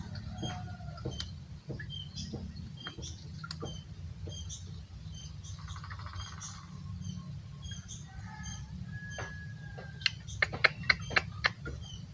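Birds calling: scattered short high chirps, a short trill about six seconds in and a held whistled note a little later, then a quick run of loud sharp chirps or clicks near the end, over a steady low hum.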